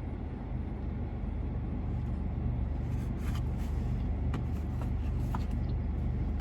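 Steady low hum of a car running, heard from inside the cabin, with a few faint clicks and rustles about halfway through.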